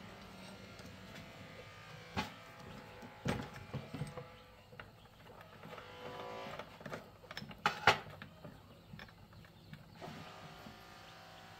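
Hand work with a screwdriver on a small engine: a handful of sharp metal clicks and taps as tools and parts touch, over a faint steady hum.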